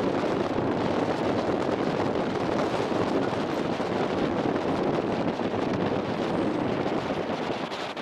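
Steady rush of wind on the microphone aboard a moving boat, easing slightly near the end.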